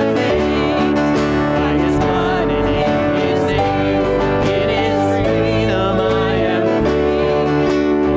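Hymn sung with instrumental accompaniment: held chords that change every second or two under wavering sung voices.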